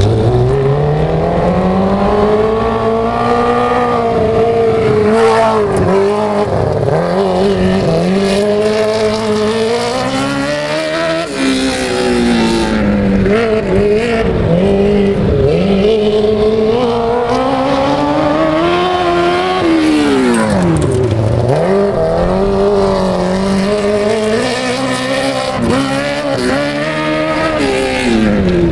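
TQ (three-quarter) midget race cars running laps on a dirt track, engines rising and falling in pitch as they accelerate and back off, with cars passing close by now and then.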